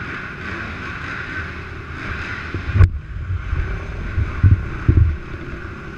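450-class race quads' four-stroke engines running around a dirt track as a steady drone, with a sharp knock about three seconds in and a few low thumps on the microphone soon after.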